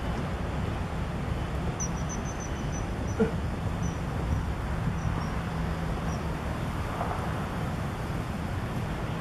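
Steady low outdoor background rumble, with a series of faint high chirps running from about two seconds in to about six seconds in.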